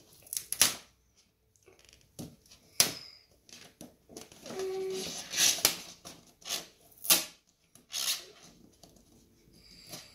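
Hands rubbing and pressing on an inflated latex balloon while a paper ear with an adhesive pad is stuck on: a string of short, sharp scratchy crinkles and rubs, five or so louder than the rest.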